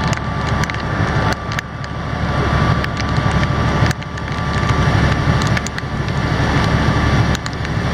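Longtail boat's engine running steadily under way, mixed with wind buffeting the microphone and the hiss of heavy rain, with scattered sharp ticks throughout.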